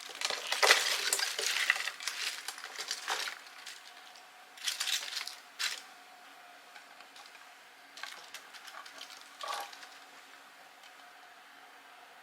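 Kitchen handling noises: clattering and crackling in three bursts, the first and loudest lasting about three seconds, over a faint steady hum.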